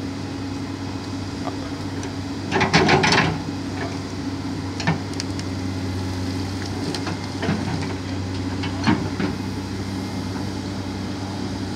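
Komatsu wheeled excavator's diesel engine running steadily as its bucket shifts a buried tractor out of mud and debris. There is a loud burst of scraping and clanking about two and a half seconds in, and a few shorter knocks later.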